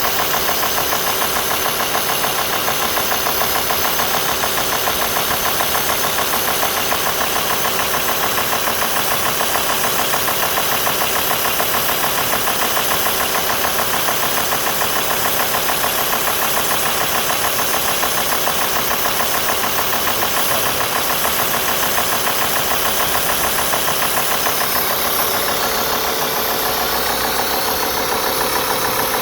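Alfa Romeo 2.4 JTDm five-cylinder turbodiesel running steadily at idle with a fast, even rhythmic noise. This is the strange noise that shows once the coolant is at 90 °C; a higher steady tone joins a few seconds before the end.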